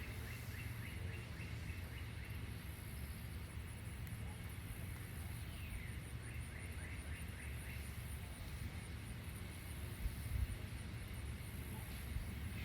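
Outdoor ambience by the water: a bird twice sings a quick run of falling notes, over a steady high, fast-pulsing insect trill and a low wind rumble on the microphone.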